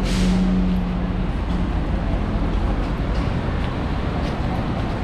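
Street traffic: a steady rumble of passing vehicles, with a sharp hiss and a short hum in the first second or so.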